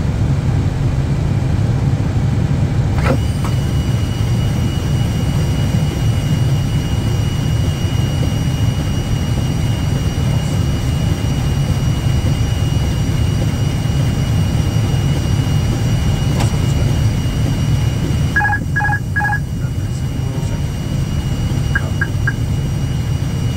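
Steady low noise of airflow and engines in an aircraft cockpit on approach. A steady high tone sets in about three seconds in, and about eighteen seconds in three short beeps sound.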